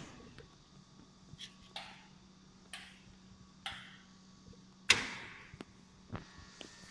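Vacuum forming machine giving a series of short sharp clicks and brief hissing puffs, about six in all and unevenly spaced, the loudest about five seconds in, over a faint steady hum.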